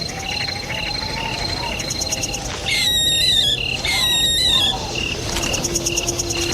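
Night ambience of crickets chirping in an even, repeating rhythm, with two louder wavering bird calls in the middle, each lasting under a second. A low held tone comes in near the end.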